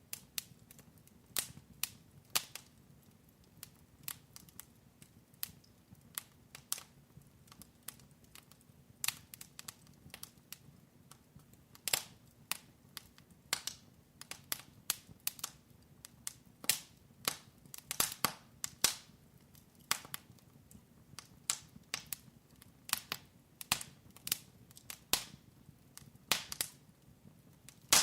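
Wood fire crackling in a fireplace: irregular sharp snaps and pops, one to a few each second.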